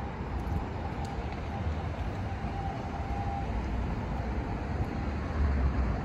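Steady street traffic noise from cars on the road, with a low rumble.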